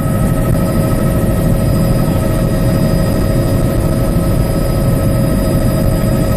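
Bell 206B3 JetRanger helicopter heard from inside the cockpit in flight: the single turboshaft engine's steady whine, several high tones held level, over the constant low rumble of the rotor.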